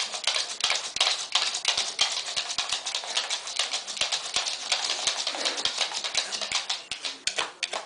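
Dog working at a plastic puzzle toy with its nose and paws: rapid, irregular clicking and rattling of the hard pieces, which stops suddenly at the end.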